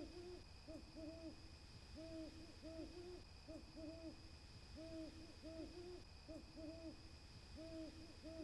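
An owl hooting: soft hoots repeated in quick runs with short pauses between them.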